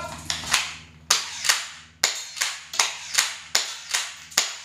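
Electric-powered toy M1911 foam-dart pistol firing round after round, its plastic slide cycling with each shot: a string of sharp clacks, about two or three a second.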